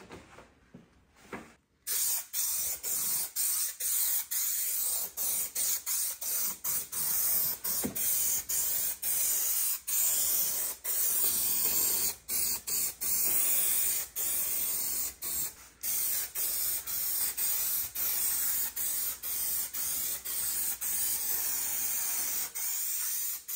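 Aerosol can of spray contact adhesive spraying a bright hiss in many short bursts with brief gaps, starting about two seconds in.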